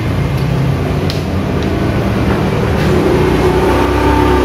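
Steady low engine rumble, like a motor vehicle running, with a few light clicks of the string trimmer's telescopic shaft collar being worked by hand.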